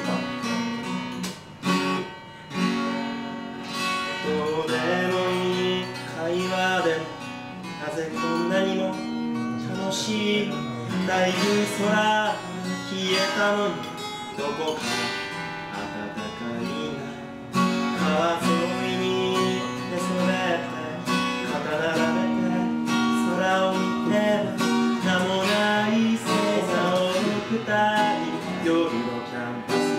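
Steel-string acoustic guitar strummed and picked, with a man singing over it.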